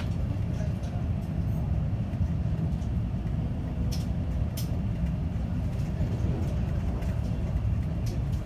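Electric train running at speed, heard from inside the passenger cabin as a steady low rumble, with a few short sharp clicks about four seconds in and again near the end.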